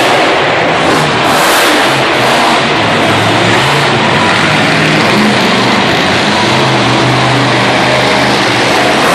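Monster truck engine revving hard and very loud inside a large indoor arena, its pitch rising and falling as the driver works the throttle.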